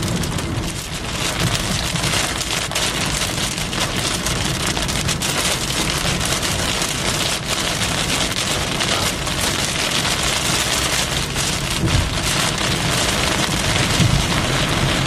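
Heavy thunderstorm rain with very large drops drumming on a car's roof and windshield, heard from inside the car: a dense, steady hiss of countless impacts over a low rumble.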